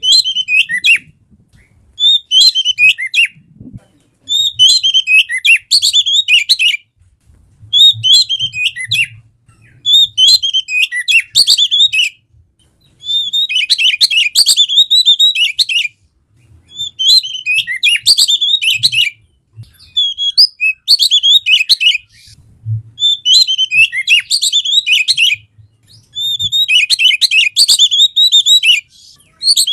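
Oriental magpie-robin (kacer) singing in quick phrases of varied whistles and chattering notes. The bursts last one to three seconds each, with short pauses between them.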